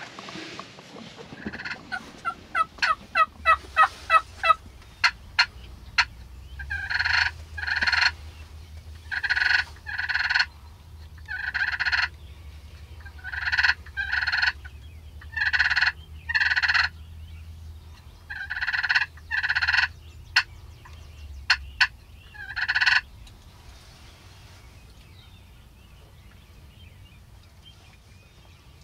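Eastern wild turkey gobbler calling: a quick run of sharp notes that build up over the first few seconds, then a series of about eight loud double gobbles, a couple of seconds apart.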